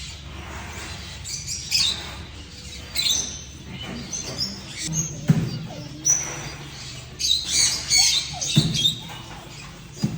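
Birds chirping and squawking, with many short, high calls scattered throughout.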